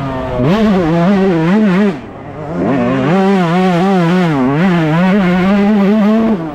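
Yamaha YZ125 single-cylinder two-stroke engine at high revs on the throttle, the revs wavering up and down. The revs drop briefly about two seconds in and climb back, then drop again near the end as the throttle is shut.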